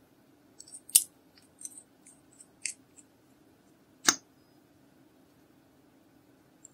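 Crisp plastic clicks and ticks from a small plastic lip-tint bottle being handled and its screw cap twisted off. Two sharp clicks, about one second and about four seconds in, with lighter ticks between them.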